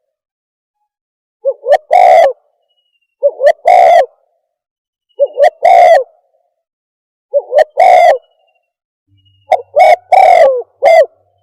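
Spotted dove (terkukur) cooing as a lure call: five loud phrases about two seconds apart, each a short note followed by a longer one.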